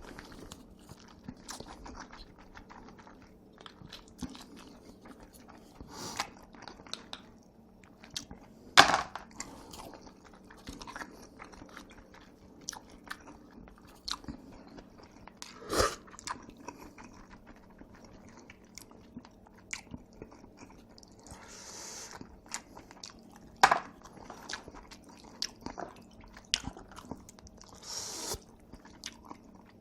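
Close-up chewing of jjajangmyeon and jjamppong noodles, a steady run of small wet mouth clicks. Three louder sharp clicks are spread through, and two brief hissing sounds come in the second half.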